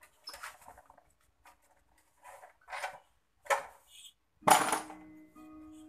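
Metal tools and engine parts clinking and knocking while a two-stroke moped engine is unbolted and lowered out of its frame: several separate knocks, the loudest about four and a half seconds in. A steady hum sets in after it.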